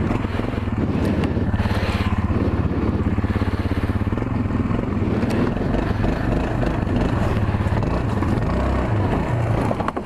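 ATV engine running steadily under throttle, with a few sharp knocks as the machine rides over rough ground.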